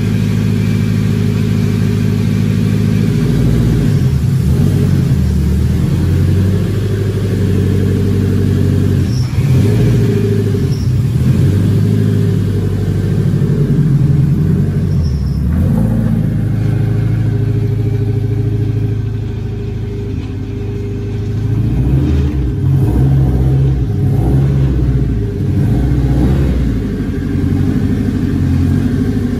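Turbocharged K20 four-cylinder engine in a Honda Civic EK running at low revs while the car is driven slowly out and manoeuvred. The pitch shifts a few times with light throttle.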